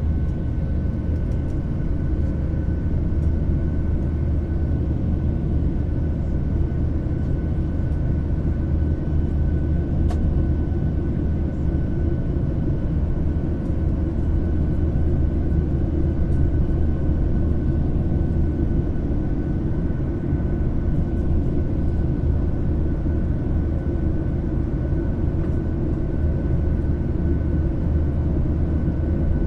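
Cabin noise of a Boeing 737-700 climbing after takeoff, heard from a seat over the wing: the steady sound of its CFM56 turbofan engines, a deep rumble with a thin whining tone on top.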